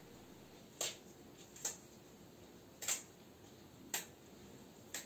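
Fresh taioba leaves (Xanthosoma sagittifolium) being torn apart by hand, five short crisp snaps about a second apart.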